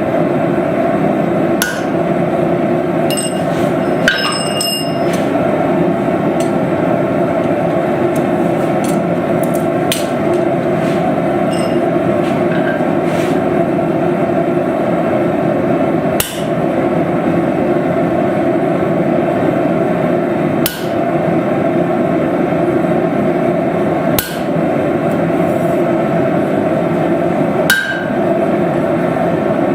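Hammer forging a steel knife blank on an anvil: separate ringing blows a few seconds apart over a loud steady roar.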